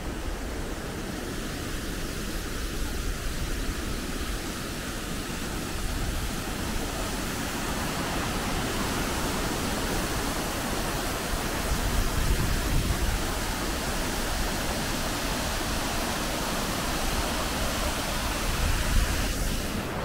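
Kegon Falls waterfall: a steady, even rushing of falling water that swells briefly twice.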